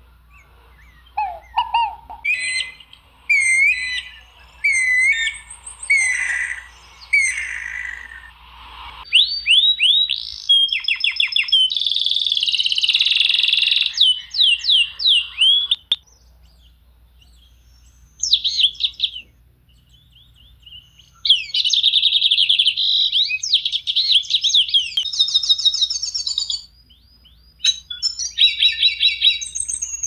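Songbirds singing in bursts of clear whistled phrases and fast trills, with short pauses between phrases and a quieter gap about sixteen seconds in.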